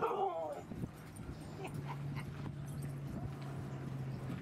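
A dog's short whining cry, falling in pitch, right at the start, amid dogs milling and sniffing. A steady low drone runs through the second half.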